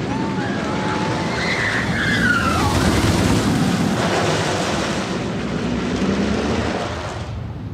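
El Toro wooden roller coaster train running past: a rumble that swells to a peak a few seconds in and then fades away, with a few high squeals near the start.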